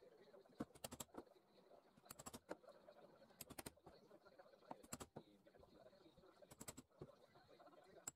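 Faint clicking in quick groups of three or four clicks, one group about every second and a half.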